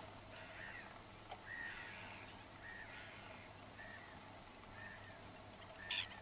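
Black-winged stilts calling: short, repeated calls at a steady pitch, roughly one a second, with one louder, sharper call near the end. A single click about a second in.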